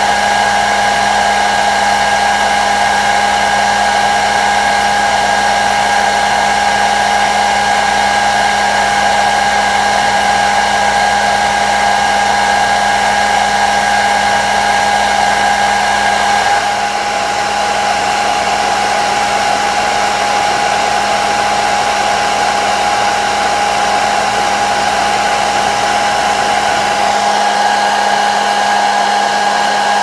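Hair dryer running steadily: a continuous rush of blown air with a steady motor whine. A higher part of the whine drops out a little over halfway through and returns near the end.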